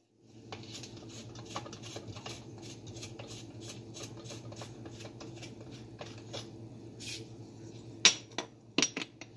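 Light clicks and taps of hands handling the aluminium, nylon and plastic parts of an old Nelson tractor lawn sprinkler, with a few sharper clicks near the end, over a steady low hum.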